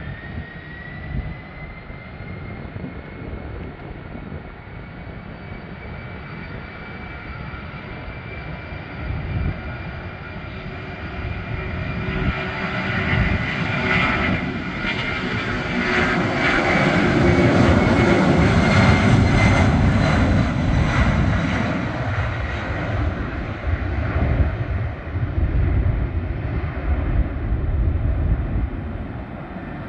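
Boeing 767-200 freighter's two turbofan engines at takeoff power. A thin whine rises in pitch near the start as the engines spool up, then jet noise builds as the aircraft rolls down the runway and passes, loudest about two-thirds of the way through, and eases off as it climbs away.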